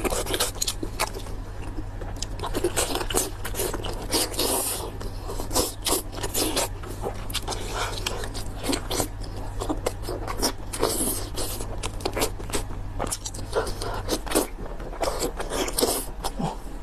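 A person eating lamb intestines up close to the microphone: biting and chewing, with many short wet smacks and clicks.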